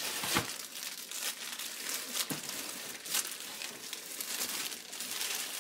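Thin plastic packaging bag crinkling and rustling with many small crackles as it is handled and pulled open.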